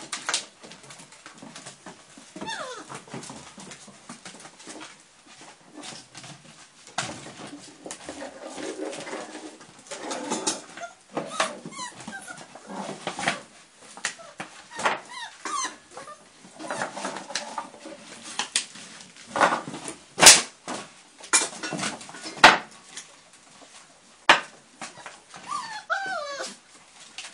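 Month-old Rhodesian Ridgeback puppies at play, giving scattered whimpers and short whines. Sharp knocks and clatters come in between, the loudest about twenty seconds in, from puppies pushing an empty plastic bottle across wooden floorboards.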